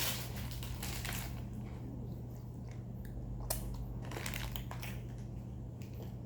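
Crunching and crinkling as snacks and their packaging are handled and eaten, with a few sharp clicks, over a steady low hum.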